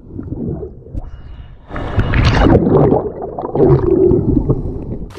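Muffled underwater gurgling and rumbling of seawater heard by a camera below the surface, louder from about two seconds in.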